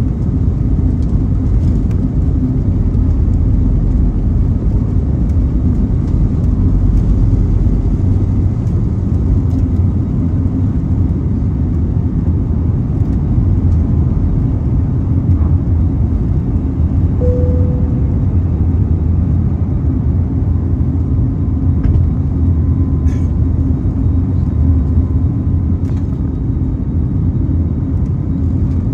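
Steady rumble of an Airbus A321neo's engines and airflow inside the cabin during takeoff and climb-out, with a steady hum running through it. A short tone sounds just past halfway.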